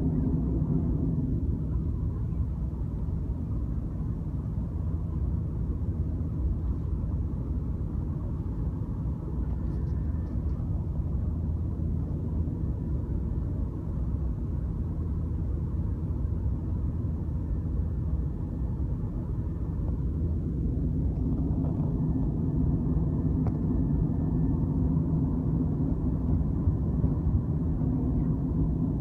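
Steady drone of an airliner's jet engines and rushing airflow, heard inside the passenger cabin in flight.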